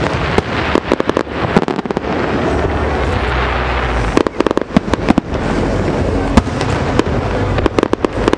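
Aerial fireworks shells bursting: clusters of sharp bangs in quick succession over a continuous rolling rumble of reports echoing across the water, with the loudest single bang a little past the middle.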